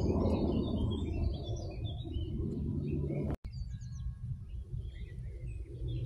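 Several songbirds chirping and twittering, with a low rumble beneath that eases off partway through. The sound drops out for an instant about three and a half seconds in.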